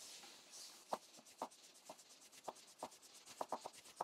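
Floor pump (track pump) being worked in quick strokes to inflate a bicycle tyre: faint rubbing of the plunger with a light click or knock about twice a second.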